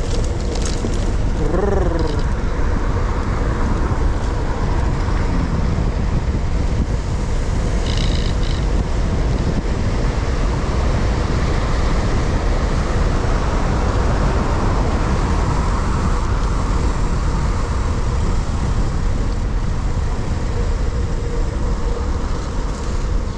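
Wind rushing over an action camera's microphone on a bicycle speeding downhill, mixed with steady road and traffic noise. A short falling tone sounds about two seconds in, and a brief high beep about eight seconds in.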